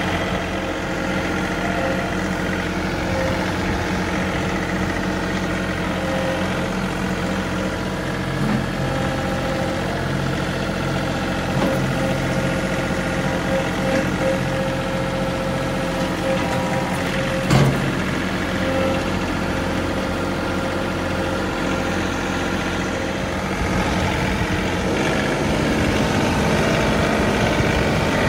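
John Deere 3038E compact tractor's three-cylinder diesel engine running steadily as the tractor is driven, with one sharp knock about two-thirds of the way through and the engine getting louder near the end.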